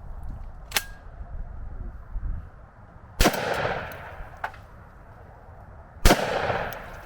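Two shotgun shots about three seconds apart, each with a fading echo across the range. A smaller sharp click with a short ring comes about a second in.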